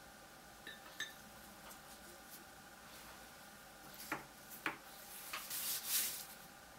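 Faint clinks and taps against a small glass bowl: a couple of light clinks about a second in and two sharp taps around four seconds in. A short rustle of a gloved hand follows near the end.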